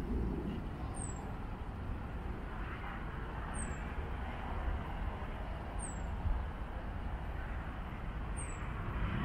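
Steady outdoor background noise: a low rumble with a hiss above it, unbroken and without distinct events.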